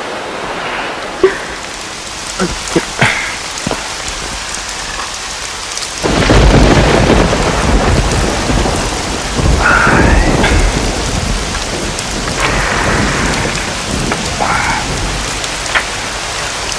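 Heavy rain falling steadily, with thunder rumbling loudly about six seconds in and again around ten seconds. A few sharp knocks come in the first few seconds.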